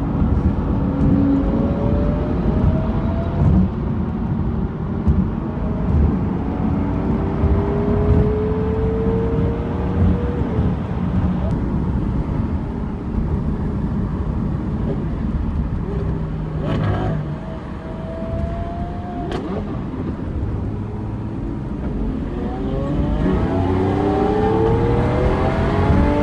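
Lamborghini Aventador SVJ's V12 engine accelerating over a deep, steady rumble, its pitch climbing in several pulls, with the heaviest run of rising revs near the end. A couple of sharp exhaust cracks come a little past the middle.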